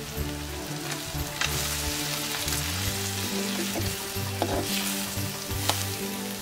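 Sliced onions, green chilies and curry leaves sizzling in oil in a clay pot while a spoon stirs them, with scrapes against the pot. The sizzle grows louder about a second and a half in. Background music plays underneath.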